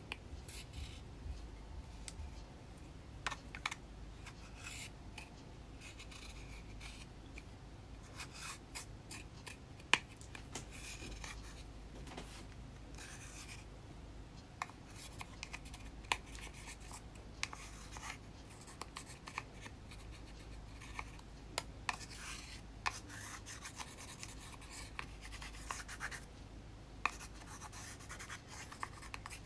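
Pressed makeup powder being scraped and crumbled out of a compact pan with a small spatula: irregular scratching strokes with many sharp little clicks of the tool against the pan.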